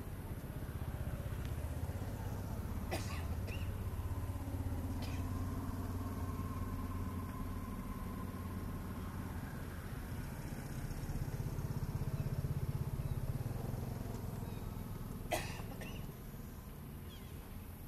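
Low engine drone that holds for most of the stretch, swells slightly and then fades out after about sixteen seconds. A few sharp clicks sound over it, the loudest shortly before the drone fades.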